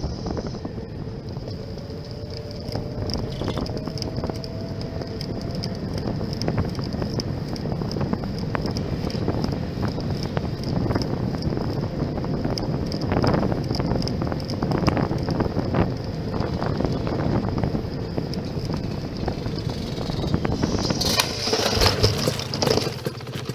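Wind rushing over the microphone of a bicycle-mounted camera, with tyre noise as the bicycle rides along a paved path. Near the end comes about two seconds of loud, sudden knocks and clatter: the bicycle colliding head-on with a dirt bike.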